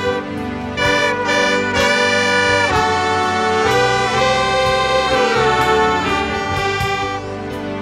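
A band of saxophones and trumpets playing a tune together in held notes that change about once a second, over a low bass line.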